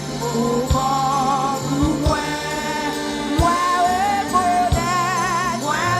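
Live gospel worship music: a held, wavering sung melody over a band with steady bass notes and regular drum beats.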